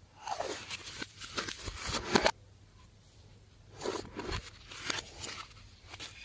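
Slime being handled and pressed, making sticky crackling and clicking in two bursts with a short pause between them.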